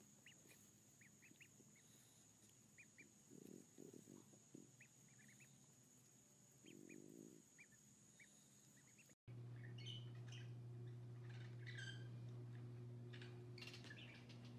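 Ducklings peeping faintly: many short, high, upward peeps scattered over several seconds. About nine seconds in, this gives way to a steady low hum with scattered chirps and clicks.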